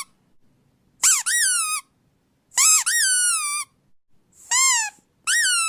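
A series of high-pitched squeaks, four in all, each rising then falling in pitch and coming about a second and a half apart; the last one, near the end, is held at a steady pitch.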